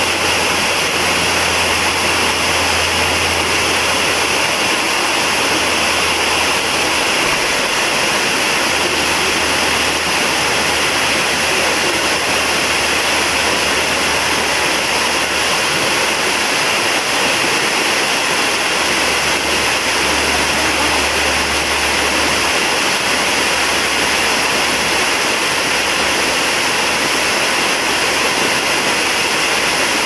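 Waterfall pouring down a rock face close by: a steady, loud rush of falling water.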